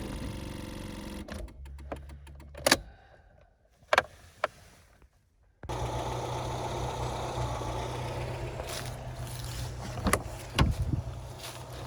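Engine of a 1999 Volvo S40 1.8 running, then stopping with a sharp click about three seconds in; after a near-silent spell broken by a couple of clicks, a steady running sound with a strong low hum cuts in suddenly, with a few clicks near the end.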